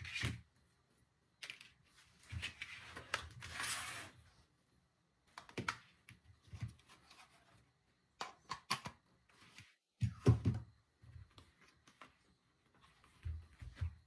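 Irregular rustling and scraping with sharp clicks, the sound of packaging and small plastic parts being handled during unboxing, with a louder knock about ten seconds in.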